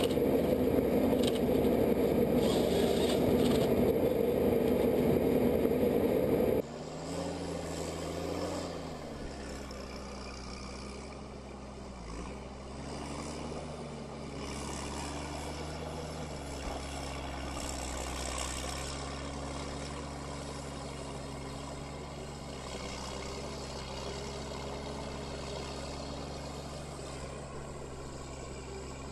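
Heavy machinery running: a loud machine with a strong steady hum, cutting off suddenly about six and a half seconds in to a quieter engine running with small rises and falls in pitch.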